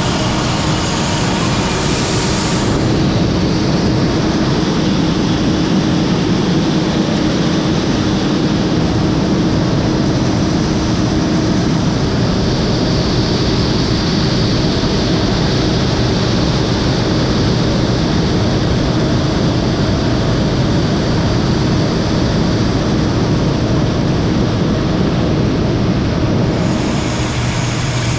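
Heavy harvest machinery running steadily, a continuous loud engine and machine noise with a constant hum.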